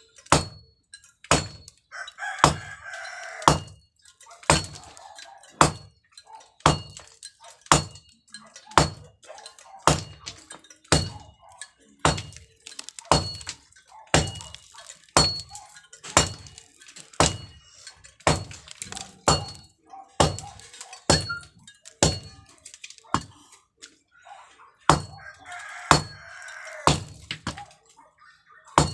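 Steady hammer blows, about one a second, each with a slight metallic ring. A rooster crows twice, near the start and near the end.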